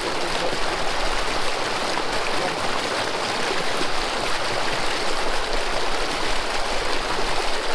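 Stream water rushing, a steady unbroken wash of sound.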